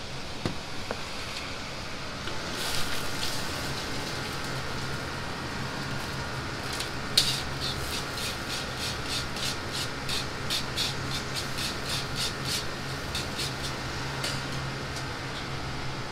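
Stir-frying in a wok over a high gas flame: food sizzling with a steady low hum underneath, and from a few seconds in, rapid metal clanks of the ladle working the wok, about two to three a second, until near the end.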